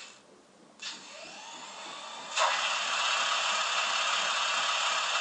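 Sound decoder of a Vitrains HO-scale RENFE class 250 electric locomotive playing start-up sounds through the model's small speaker. A whine rises in pitch, then about two and a half seconds in a loud, steady running noise of the locomotive's auxiliary machinery sets in.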